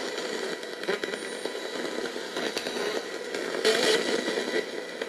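NanocomS Coffin Edition spirit box sweeping through radio frequencies: a steady crackling static with short louder bursts of noise, one about three and a half seconds in.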